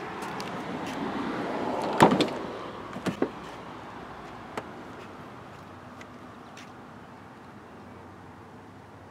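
Driver's door of a 2010 Ford Mustang GT coupe being unlatched and opened: one loud sharp latch clack about two seconds in, then two lighter knocks about a second later.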